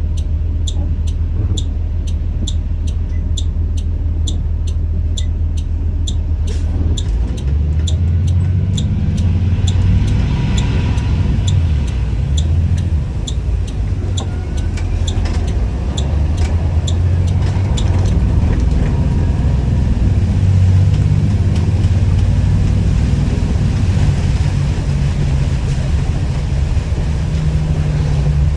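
2021 Blue Bird All American school bus engine running with a steady low hum and an even ticking about twice a second. About a quarter of the way in, the engine note rises and varies as it comes under load, and the ticking stops about two-thirds of the way through.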